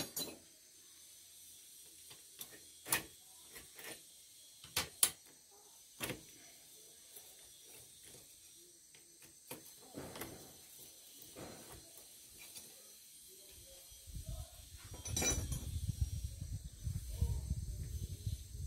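Scattered metal clicks and knocks of hand tools and parts being worked at a motorcycle's front sprocket, with a little scraping midway. A low rumble comes in near the end.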